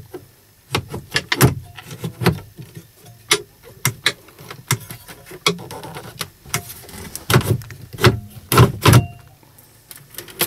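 Plastic lid and tray of a Scania S-series dashboard storage compartment being handled: a run of sharp clicks and knocks as it is pushed shut, latched and opened, loudest near the end.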